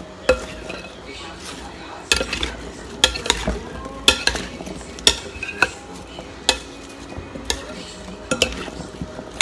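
A metal spoon stirs and tosses chopped fruit in a glass bowl, clicking against the glass about once a second over a soft, wet rustle of the fruit being turned.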